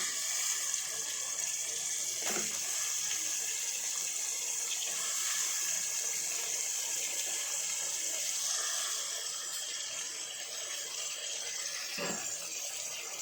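Chopped onions frying in hot oil in a pan: a steady sizzle, with a soft knock about two seconds in and another near the end.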